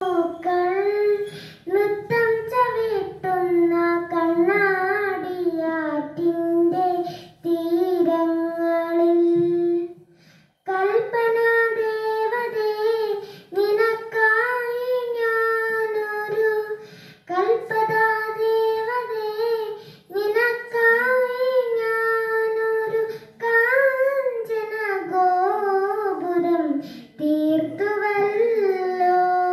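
A young girl singing a slow melody solo into a hand-held microphone, with no instrumental backing. She sings long held notes in phrases, with brief pauses for breath between them and a longer break about ten seconds in.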